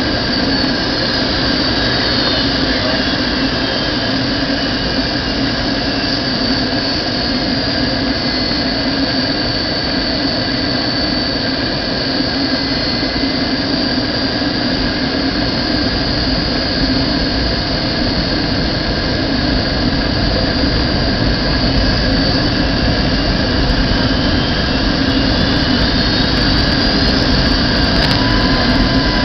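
Airliner cabin noise on approach: the steady roar of the jet engines and airflow, with whining engine tones. A high whine slides down in pitch over the first few seconds, holds, and climbs again near the end.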